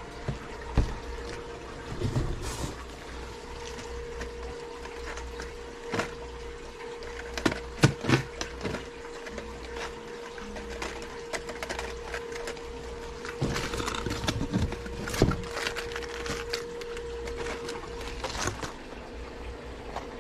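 Minnow lures in plastic packaging handled and hung on display hooks: scattered clicks and crinkles, busiest in the middle and toward the end, over a steady trickle of water and a constant hum.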